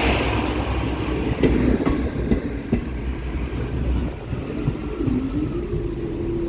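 Train passing over a level crossing, its rumble fading as it moves away, with a few sharp clacks from the wheels on the rails.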